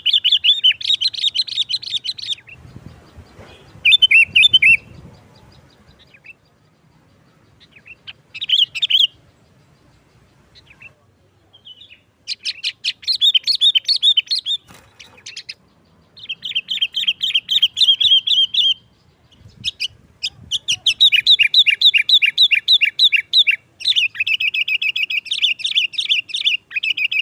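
Sooty-headed bulbul singing in phrases of rapid, chattering notes with short pauses between them, running on almost without a break in the last few seconds.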